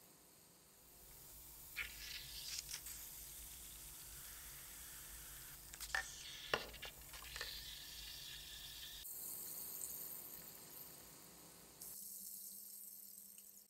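Faint fizzing and hissing of gas bubbles rising in an electrolytic rust-removal bath as current runs through it, with a few light clicks and taps around the middle from the steel electrode rod across the jar being handled.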